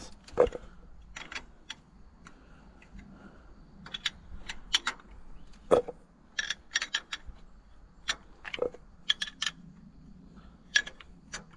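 Steel combination wrench clinking on the flange bolts of an Allis-Chalmers D17's belt pulley unit as the bolts are turned in. It makes a scatter of sharp metallic clicks at irregular intervals.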